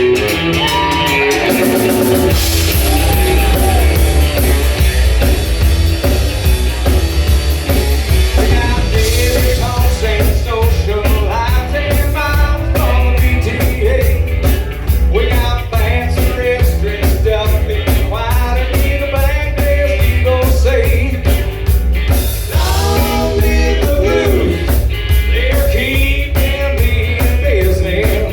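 Rock band playing a song with a lead singer over electric guitar, heavy bass and drums.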